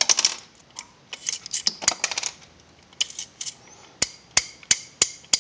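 Heritage Rough Rider .22 single-action revolver at half cock: sharp metallic clicks as the cylinder is turned chamber by chamber and the ejector rod pushes out the spent shells. There are quick clusters of clicks early on and again about a second in, then single clicks about three a second near the end.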